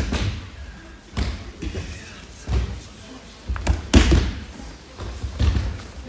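Aikido practitioners being thrown and breakfalling onto tatami mats: a string of dull thuds and slaps, about five in six seconds, the loudest about four seconds in, echoing in a large hall.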